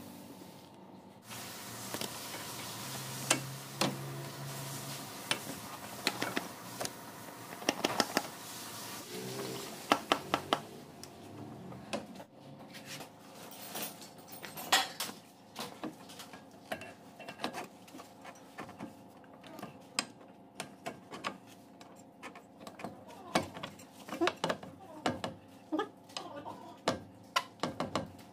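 Irregular metallic clinks, clicks and knocks of hand tools and metal parts as a new front drive shaft is fitted into the wheel hub. The knocks come unevenly, in small clusters, over a faint steady hum.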